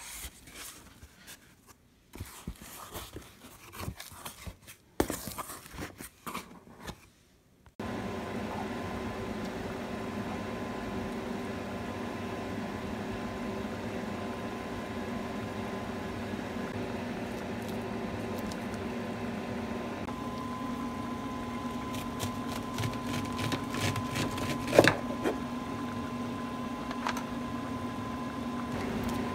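Irregular crinkling and rustling of parcel packaging and insulation padding being handled for the first eight seconds. Then a steady kitchen fan hum carrying a constant tone, with a few knife knocks on a plastic cutting board near the end, one of them sharp and loud.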